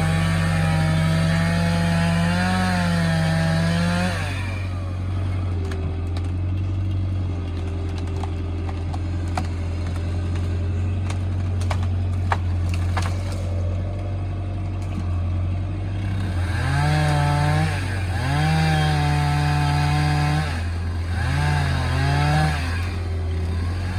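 Chainsaw cutting into a tree at full throttle, its pitch bending under load. About four seconds in it drops back to a lower steady run for about twelve seconds, with a few sharp cracks. It then revs and cuts again in several short bursts near the end.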